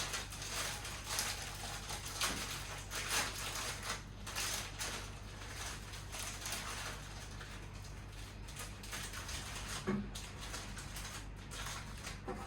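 Plastic food packaging rustling and crinkling in irregular short bursts, with light knocks as packages are handled and packed into a freezer.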